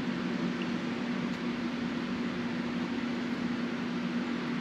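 Steady low hum with an even hiss: constant background noise from something running in the room, with no distinct events.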